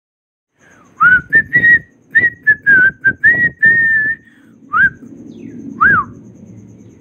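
A person whistling a short tune with pursed lips: a quick run of wavering notes, then two short rising-and-falling whistles near the end.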